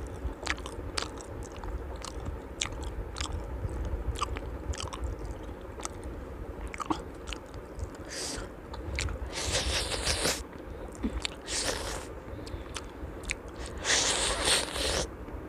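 A person eating close to the microphone: small wet mouth clicks while chewing, then several short crunching bursts in the second half. The loudest crunching comes near the end, as another bite goes into the mouth.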